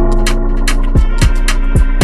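Background music with a steady electronic beat: deep kick drums that drop in pitch and crisp hi-hat ticks over held synth chords.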